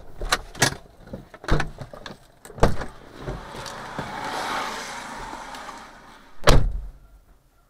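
Several sharp knocks and clicks inside a stopped car's cabin, then one loud thump about six and a half seconds in.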